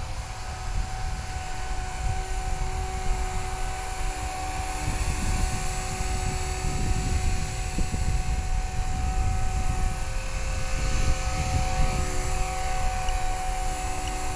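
Small electric RC helicopter (Blade 180 CFX) hovering: a steady whine from its motor and rotors, holding one pitch, over a low rumble of wind on the microphone.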